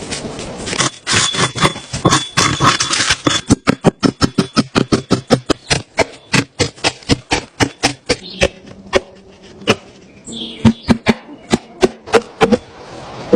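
A hand tool striking wood in a fast, regular series of sharp knocks, about four a second, with a noisier scraping stretch before them.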